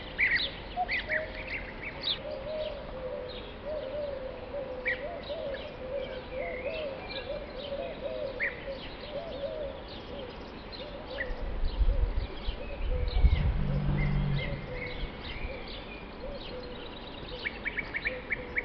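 A flock of European bee-eaters calling: many short, quick notes scattered throughout, crowding into a rapid run near the end as several birds take flight. Under them a lower, wavering sound runs through the first half, and a low rumble swells about two-thirds of the way in.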